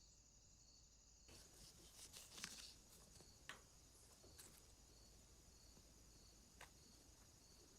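Faint handling sounds: light scraping starts about a second in, with a few small clicks scattered through it.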